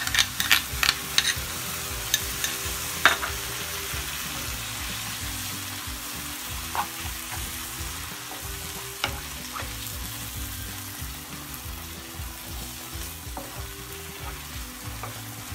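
Grated zucchini and leek sizzling in a nonstick frying pan as crème fraîche is spooned in and stirred through with a wooden spoon. A quick run of clicks in the first second or so comes from the metal spoon scraping the cream out of its bowl, then a few single taps.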